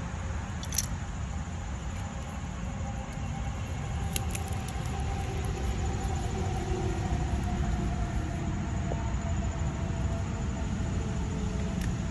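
Steady low rumble of distant traffic, with a faint hum that slowly drops in pitch midway and a few light clicks.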